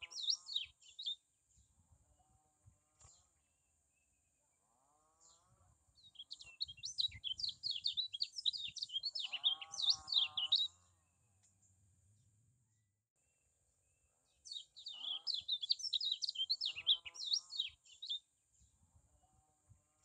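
Lemon-bellied white-eye (kecial kuning) singing: rapid, high twittering phrases in three bouts, the longest in the middle, with short pauses between.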